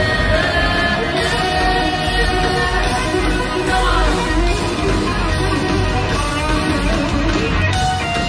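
Live heavy metal band playing loudly, heard through the arena PA from the crowd: a distorted electric guitar leads with bending notes over drums, bass and keyboards.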